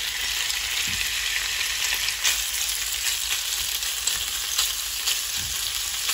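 Cubed snapper fillets sizzling steadily as they lightly fry in hot oil in a frying pan, stirred with a spatula, with a few soft knocks of the spatula on the pan.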